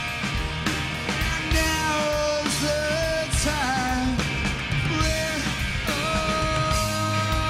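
Rock band playing live: drums and electric guitars, with a male lead voice singing over them from about a second and a half in and holding one long note near the end.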